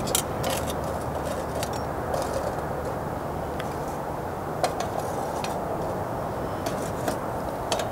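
Charcoal briquettes being set one by one with tongs around a cast-iron Dutch oven: scattered light clicks and clinks, spaced irregularly, over a steady rush of wind.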